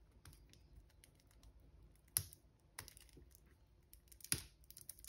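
A stack of paper trading cards being thumbed through by hand, giving a few sharp card clicks with softer ticks between them.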